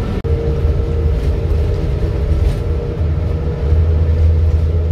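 Coach bus running on the road, heard from inside the passenger cabin: a steady low engine and road rumble with a faint hum above it, growing a little louder past the middle.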